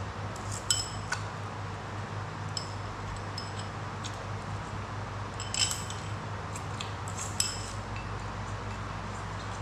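Chopsticks clinking against ceramic bowls and a plate while noodles are eaten: a scattering of sharp, short clinks over a steady low hum.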